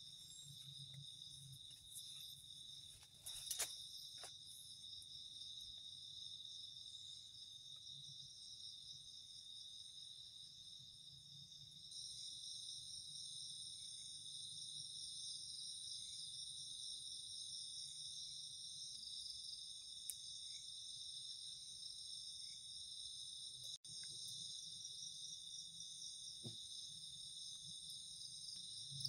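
Night chorus of crickets and other insects: several steady high-pitched trills layered together, with another, higher trill joining about twelve seconds in. A couple of short knocks about three and a half and four seconds in.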